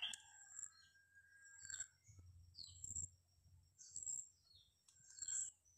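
Faint, scattered chirps of small birds in the background, over a few soft clicks of hands handling the nylon snare string.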